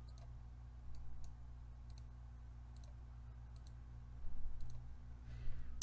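A few scattered soft computer-mouse clicks over a steady low electrical hum, with a brief soft noise about four seconds in.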